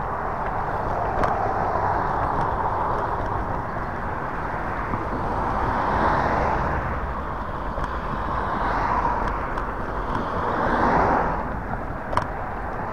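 Steady wind and road rumble on the microphone of a moving Hiboy S2 Pro electric scooter, with a rushing noise that swells and fades three times, like traffic going by. A single sharp click comes near the end.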